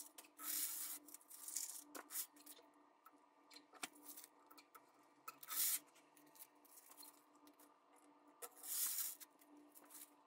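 Painter's tape being pulled off the roll in a few short ripping pulls and pressed along the edge of a wooden longboard deck, masking it off, with small clicks and knocks of handling on the workbench over a faint steady hum.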